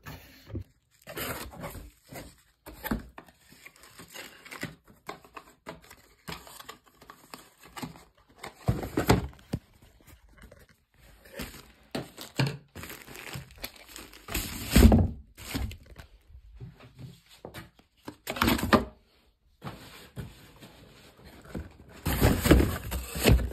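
Plastic-wrapped clothing and cardboard box flaps being handled while packing a box: irregular crinkling, rustling and scraping, with a few thumps, the loudest about two-thirds of the way in.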